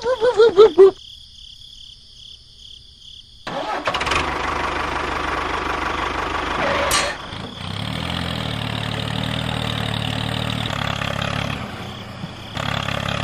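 A rooster crows briefly at the start. After a short quiet, an engine starts about three and a half seconds in and runs steadily, with a brief rising sweep near seven seconds.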